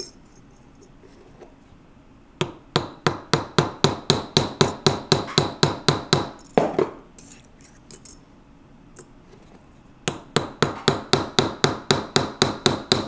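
A hammer tapping rapidly, about five light blows a second, on a steel ball-ended punch that flares a silver tube rivet against a steel bench block, metal on metal with a bright ring. Two runs of taps, with a pause in the middle.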